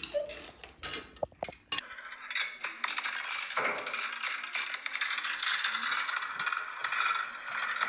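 Plastic marble-run track pieces clicking and knocking as they are handled, then from about two seconds in a continuous dense rattle.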